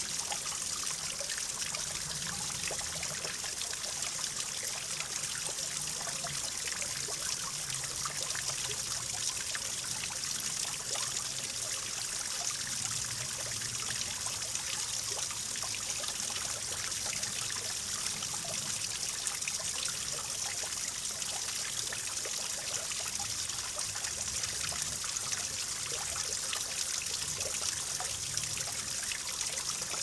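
Small waterfall splashing steadily into a shallow pool, a constant trickling, hissing patter of falling water.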